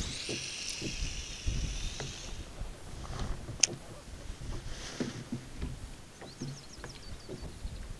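Fishing reel whirring as line pays out during a cast, for about two seconds. Then faint knocks of gear against the kayak, and a short run of quick light clicks near the end.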